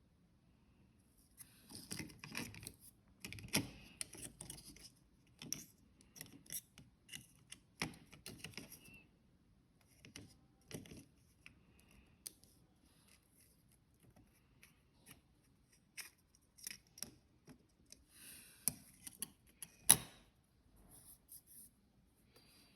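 Small objects being handled close by: scattered clicks, taps and rustling, with longer rustles about two to four seconds in and again near the end, and a sharp click just before the end.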